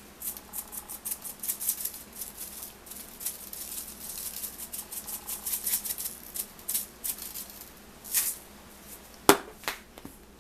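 A seasoning shaker bottle shaken over a tray of cauliflower florets, a long run of quick, uneven rattling shakes; a single sharp knock about nine seconds in.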